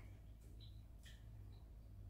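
Near silence: a steady low hum with two faint, brief soft clicks.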